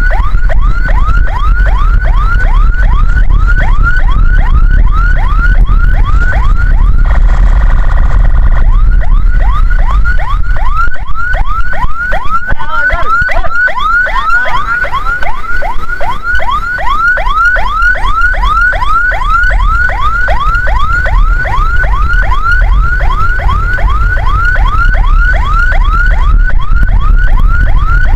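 Ambulance siren in a fast yelp, rapid rising whoops repeating about three times a second, briefly jumbled about halfway through. Underneath is a steady low rumble of the vehicle.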